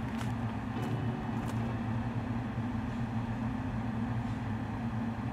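Steady low hum of a hog barn's wall-mounted ventilation fans running.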